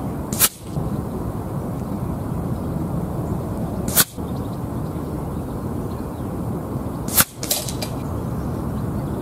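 Three shots from a sub-12 ft-lb .177 PCP air rifle, each a short sharp crack about three and a half seconds apart, the last followed by a couple of fainter clicks. Steady wind rumble on the microphone underneath.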